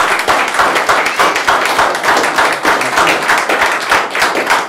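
Audience applauding: many hands clapping densely, thinning slightly near the end.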